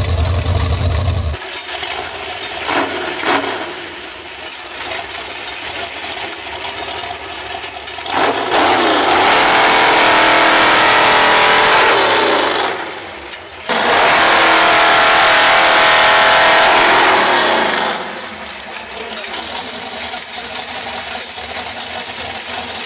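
V8-engined chainsaw running. It gets much louder twice, for about four seconds each, starting around 8 and 14 seconds in, and the engine note sags in pitch during the first loud stretch.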